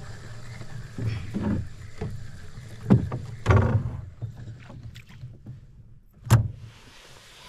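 A fishing reel is being cranked in a canoe, with knocks and thumps of gear against the hull. The sharpest knock comes about six seconds in.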